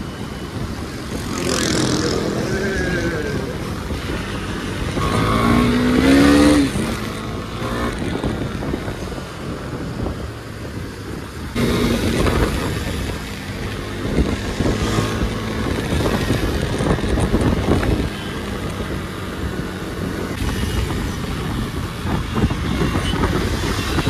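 Motorcycle engine running at road speed in traffic, with wind noise and the sound of other vehicles; its pitch rises and falls a few times in the first seven seconds.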